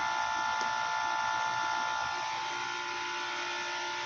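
Washing machine running with water pouring and splashing inside the drum: a steady hiss under a steady motor whine. About halfway through, the whine changes pitch.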